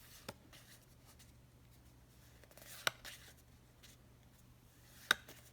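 Handling sounds: three short sharp clicks or taps about two and a half seconds apart, the middle one wrapped in a soft rustle, over a faint steady hum.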